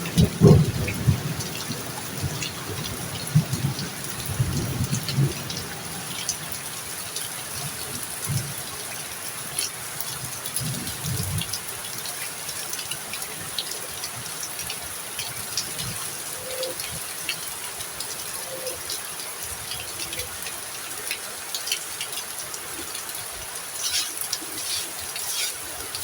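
Heavy rain falling steadily, with scattered drips tapping on surfaces. A low rumble of thunder dies away over the first ten seconds or so.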